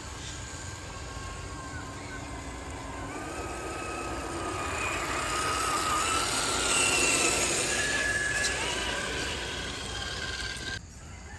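Electric motors and gear trains of RC scale crawler trucks whining as they wade through a muddy pool, with water churning around the tyres. The whines shift up and down in pitch with the throttle and grow loudest as one truck passes close by, then drop off abruptly near the end.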